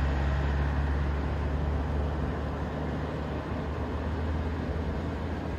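A steady low mechanical rumble with a hiss over it, easing slightly in level.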